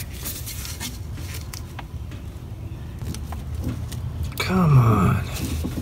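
Faint clicks of a gloved hand working at the plastic quick-disconnect plug on an alternator, over a steady low hum. Near the end comes a short grunt of effort, falling in pitch, and the hum cuts off sharply.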